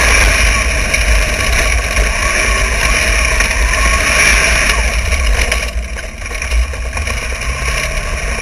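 Wingless dirt sprint car's V8 engine at racing speed, heard from an onboard camera, its pitch rising and falling as the throttle comes on and off through the turns. It eases back briefly about six seconds in.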